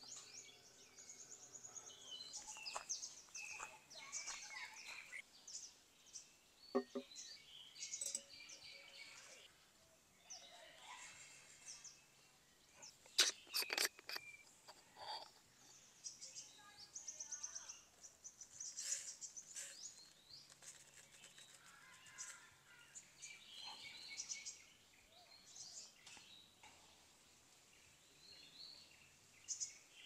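Wild birds chirping and calling in short, varied phrases, with a few sharp clicks, the loudest pair about halfway through.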